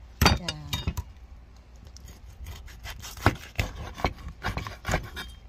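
Cleaver chopping through small sunfish on a wooden cutting board: sharp knocks of the blade hitting the wood, several in quick succession from about three seconds in, with scraping and rubbing between.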